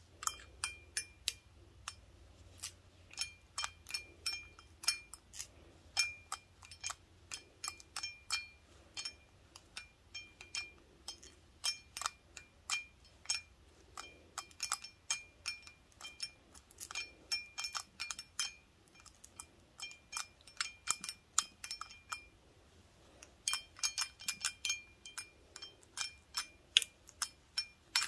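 Wooden toothpicks fixed to gloved fingertips tapping a large glass beer stein: quick, irregular clinks, several a second, many with a short ringing tone from the glass. There is a brief lull about three quarters of the way through.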